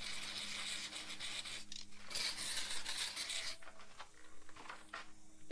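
Aerosol brake cleaner hissing out of the can in two sprays, the first stopping about one and a half seconds in and the second running from about two to three and a half seconds in. Faint scrapes and clicks follow.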